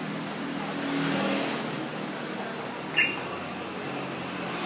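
Busy street traffic noise, swelling as a vehicle passes about a second in. A short, high squeak falling in pitch, the loudest sound, comes about three seconds in.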